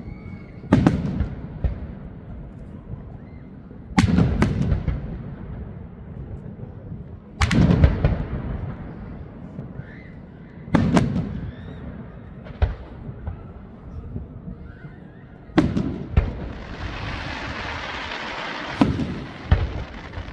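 Fireworks bursting overhead: single loud bangs every three to four seconds, each trailing off in a rumbling echo, with a few closer doubled bangs later on. Near the end, about two seconds of dense crackling spreads out before two more bangs.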